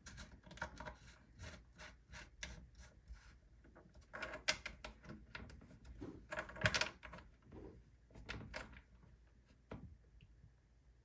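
Irregular small clicks, taps and knocks of a braided supply hose and its fitting being handled and connected to the back of a plastic bidet attachment, with louder knocks about four and a half and nearly seven seconds in.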